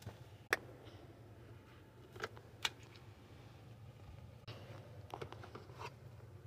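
Light plastic clicks and taps from a child handling a sippy cup: a sharp click about half a second in, two more around two seconds later, and a flurry of small taps near the end, over a low steady hum.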